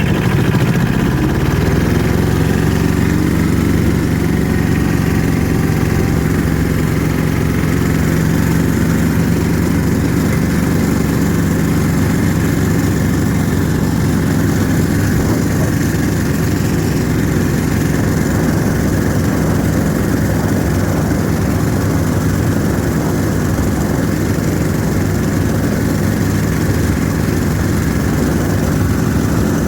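Yanmar diesel engine of an Ockelbo snowmobile running under way: the revs rise over the first couple of seconds as it pulls off, then hold at a steady cruising speed.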